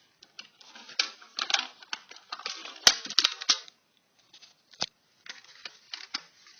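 Screwdriver bits and their holder being handled: a run of sharp clicks and short rattles, the loudest click about three seconds in.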